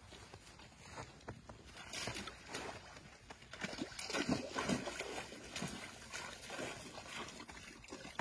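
A large dog wading in a shallow, partly frozen pool, its legs sloshing and splashing the water in irregular bursts, loudest about four to five seconds in.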